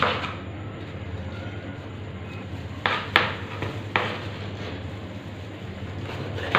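A knife cutting an onion on a chopping board: a few sharp knocks, one at the start and three more close together about three to four seconds in.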